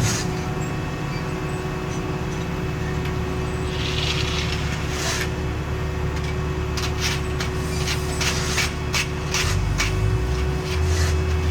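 Paving equipment's engine running steadily, its note shifting twice near the end. Over it come a series of short scraping strokes of hand tools on asphalt.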